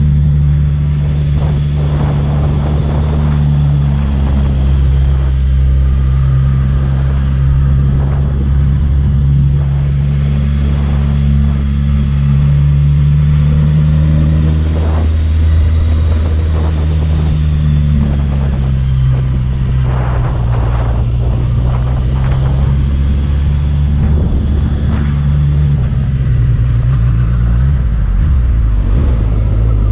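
Motorcycle engine running steadily as the bike climbs a winding mountain road, its pitch shifting with the throttle: it drops around the middle and rises again near the end. Wind rushes over the microphone.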